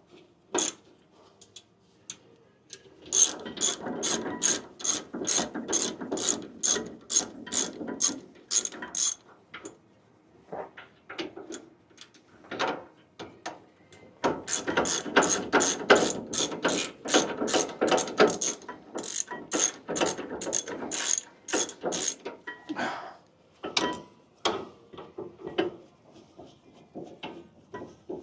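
Hand ratchet clicking steadily, about three clicks a second, as it backs a loosened rear brake bolt out of a Ford F150. It runs in two long spells of ratcheting, with scattered single clicks between and after.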